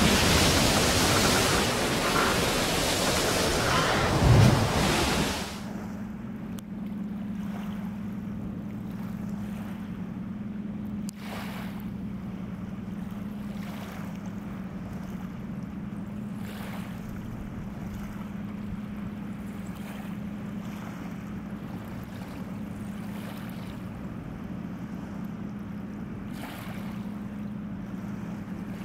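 A loud rush of wind and waves that cuts off about five seconds in, followed by the steady low drone of an inland motor tanker's engine as it runs upstream against the Rhine current, over faint water noise.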